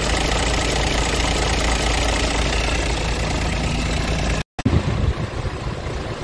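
Scania R truck's diesel engine idling steadily, heard close up in the open engine bay. About four and a half seconds in the sound breaks off for an instant and comes back duller, with some low irregular bumps.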